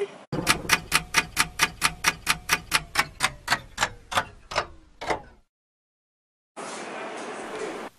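Fast clock ticking, about four to five ticks a second, with a falling tone under it; the ticks fade and stop about five seconds in. A faint steady hiss follows near the end.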